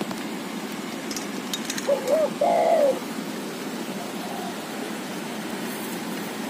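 A wild dove cooing: two short arching notes about two seconds in, then a longer note that falls away, and a faint further note about four seconds in, over a steady low hiss.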